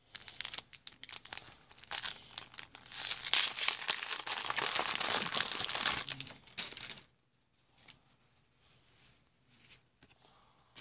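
The wrapper of a 1990 Topps baseball card pack crinkling and tearing as it is opened, for about seven seconds. After that there are only a few faint ticks.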